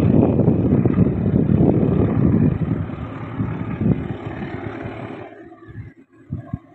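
Low rumble of a CC206 diesel-electric locomotive hauling a passenger train, heard from afar and mixed with wind on the microphone. It is uneven and fades about five seconds in.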